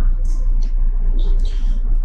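Steady low hum with a few faint, brief rustles and hisses above it.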